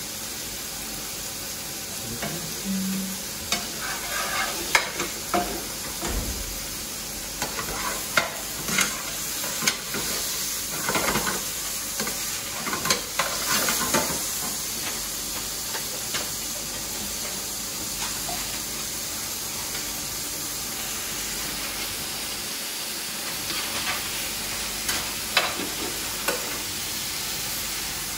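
Chicken strips sizzling steadily in hot oil in a frying pan on a gas hob, browning. A slotted spoon scrapes and clatters against the pan as the pieces are turned, mostly in the first half and again near the end.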